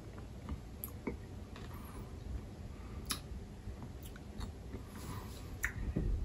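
Chewing and crunching a Marabou Non Stop, a sugar-shelled chocolate button, with scattered sharp clicks and crunches.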